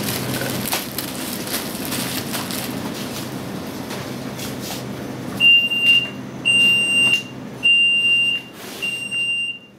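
Shop background noise with light rustling and clicks. About halfway in, a high-pitched electronic alarm buzzer starts beeping, roughly one beep a second, each about half a second long. It is the alarm of a store entrance security gate going off.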